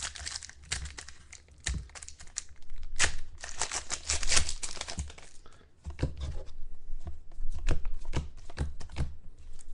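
Trading-card pack wrappers being torn and crinkled, a run of irregular crackles and rustles as the packs are opened and the cards handled.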